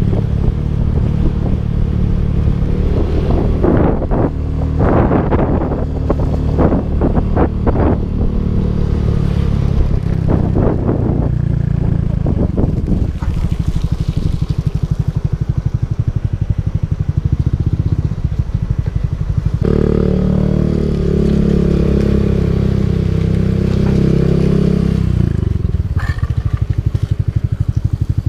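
Motorcycle engine running steadily at low revs. Bursts of crunching, scraping noise come over roughly the first half, and the engine note thickens for a few seconds about twenty seconds in.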